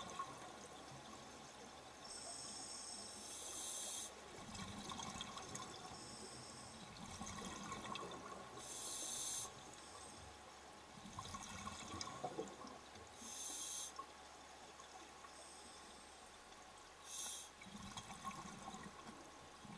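Scuba diver's regulator breathing underwater, heard faintly: hissing breaths and bubbling exhalations, about four breaths with several seconds between them.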